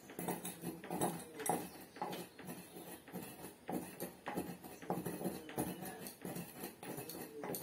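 Wooden pestle pounding into a steel bowl, a steady run of dull knocks about two a second.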